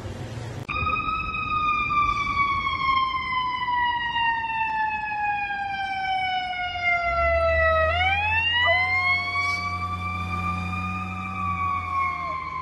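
An emergency-vehicle siren wailing, its pitch sliding slowly down for several seconds and then rising and holding, with a low rumble coming in about halfway. From about three-quarters of the way in, a white puppy howls along with it in one long held note.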